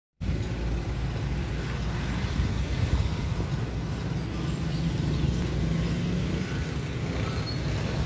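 Steady road traffic rumble, a continuous low noise of motor vehicles.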